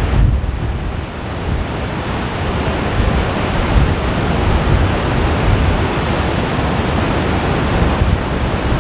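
Ermenek Dam's pressure-tunnel spillway jets discharging into a narrow gorge: a loud, steady rush of water with a heavy low rumble. The jets are being collided over the valley axis to break their energy and prevent scouring of the valley floor.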